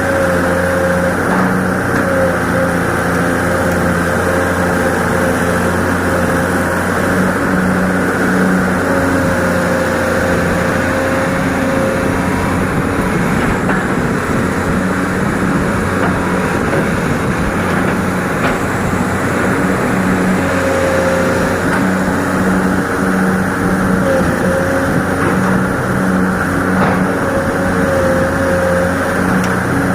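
Excavator's diesel engine running steadily under load while digging, with a higher whine that rises in and fades out several times.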